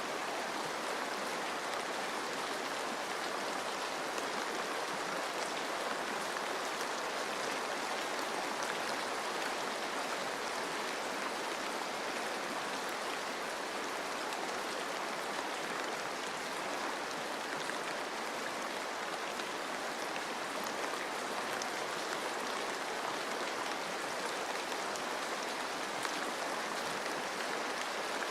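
Steady rain falling on forest foliage, mixed with running stream water: an even, unchanging hiss with a fine patter of drops.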